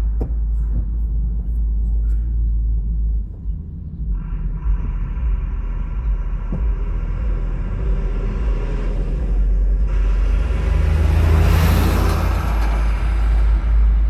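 Steady low rumble of road noise from a moving car, with a vehicle passing close that swells up and fades away about eleven to thirteen seconds in.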